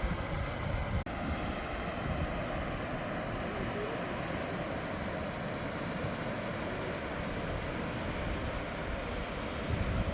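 Volcanic fumaroles venting steam with a steady rushing hiss, with wind buffeting the microphone; the sound drops out briefly about a second in.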